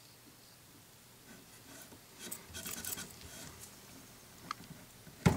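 Fingers rubbing and pressing along the seam of a leather wrap on a pool cue butt, working the stretched seam flat: a dry, scratchy rubbing of skin on leather that comes in after about a second, followed by a small click and a sharp knock near the end.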